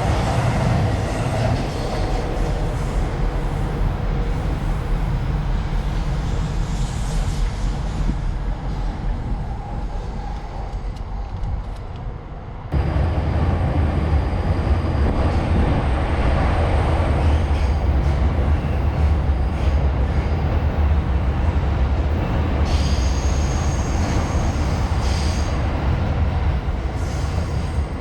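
Trains running on the tracks, a continuous rumble of wheels on rail. About halfway through the sound jumps abruptly louder and deeper, and near the end a high thin whine joins it.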